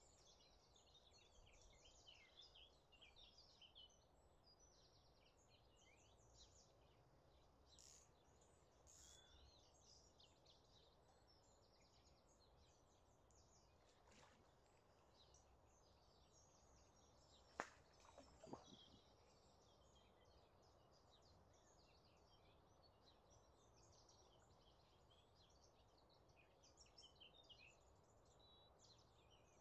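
Faint birdsong: many small birds chirping and twittering in a quiet outdoor hush, with a couple of sharp clicks about two-thirds of the way through.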